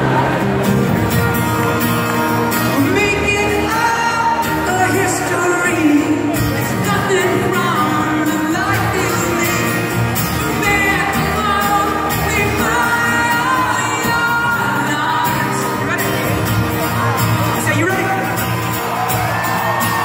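Live acoustic rock song: a singer's lead vocal over a strummed acoustic guitar through a concert PA, heard from the crowd, with audience shouts.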